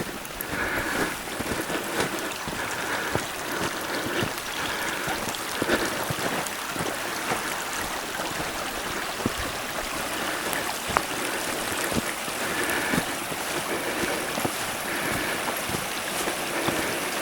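Footsteps crunching through fresh snow at a steady walking pace, about one step every 0.8 s, over a steady rushing background.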